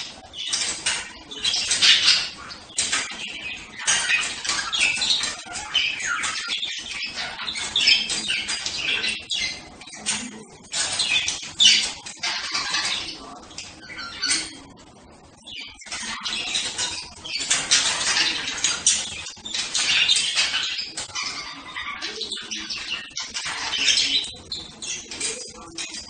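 A flock of budgerigars chattering: many quick, high chirps and warbles overlapping without a break, with a brief lull about fifteen seconds in.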